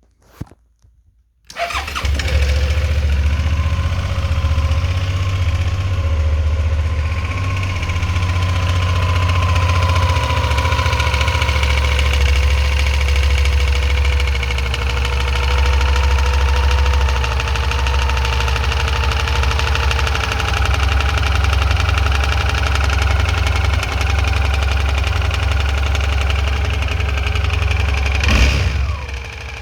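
Suzuki V-Strom 650's V-twin engine starting after about a second and a half, then idling steadily. The owner calls a noise in this running weird; its cause is not given.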